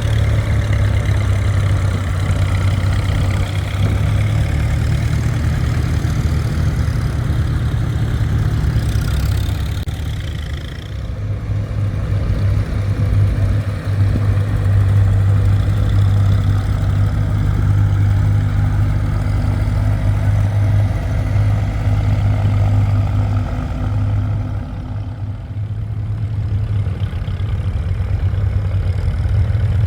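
A vehicle's engine running steadily while under way, with a loud low drone. It eases off for a moment twice, about 11 and 25 seconds in.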